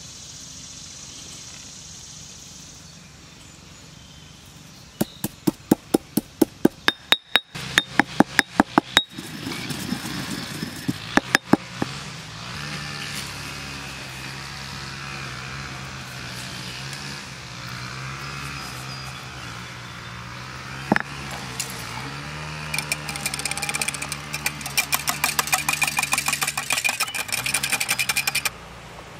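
Stone pestle pounding dried rosemary and black pepper in a stone mortar: a run of sharp knocks, several a second, starting about five seconds in, with a few more a little later. Near the end, a wire whisk beats an egg in a small glass bowl, rapid clicking against the glass that stops abruptly.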